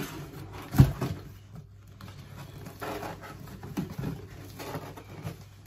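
Cardboard box and packaging being handled and rustled, with one sharp thump a little under a second in.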